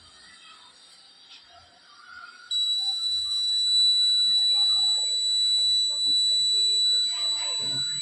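Buzzer of a homemade fire alarm circuit sounding one continuous high-pitched tone, switching on suddenly about two and a half seconds in: the alarm set off by a flame near its sensor.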